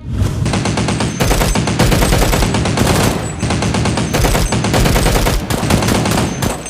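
Rapid automatic gunfire, bursts following one another almost without a break.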